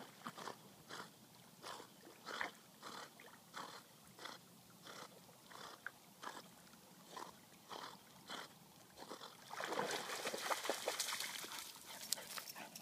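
Soft crunching steps at about one and a half a second, then, from about nine and a half seconds in, a louder stretch of splashing and scrabbling as a Labrador puppy comes out of the water onto the sandy bank.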